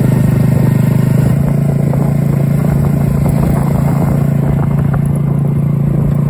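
Motorcycle engine running steadily while riding along, with a loud, even engine hum that steps slightly in pitch about a second and a half in.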